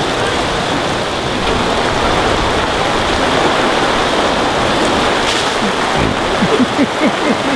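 Heavy cloudburst rain pouring down, a steady loud hiss of rain hitting the ground.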